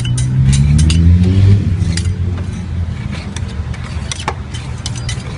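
A low engine hum rises in pitch over the first second and a half, then dies away, like a motor vehicle accelerating past. Throughout, metal spatulas give sharp clicks and scrapes on the frozen steel pan of a fried ice cream machine.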